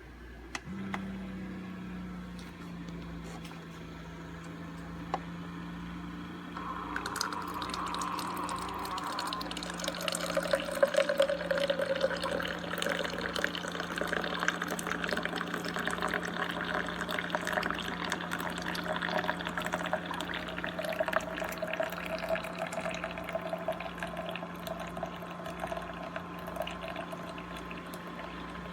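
Keurig K-Classic single-serve pod coffee maker brewing. Its pump hums steadily from about a second in, and from around seven seconds in hot coffee streams and drips into the cup.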